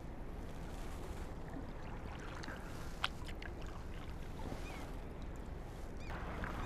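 Kayak paddle blades dipping lightly into calm water in slow alternating strokes, with soft splashes and drips. The blade is set only at the surface, not dug deep. A single sharp tick comes about three seconds in.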